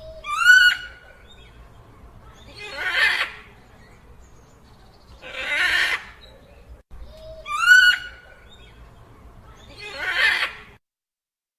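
Dinosaur sound effect: a short, shrill whinny-like call followed by breathy, hissing exhalations. The sequence repeats, so the call comes twice, about seven seconds apart.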